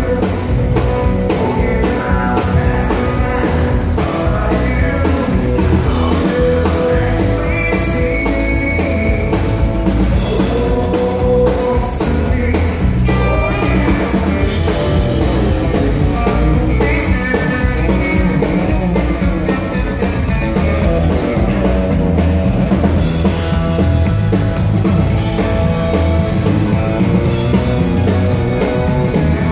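A live country band playing amplified on fiddle, electric and acoustic guitars, electric bass and drum kit, with a steady beat.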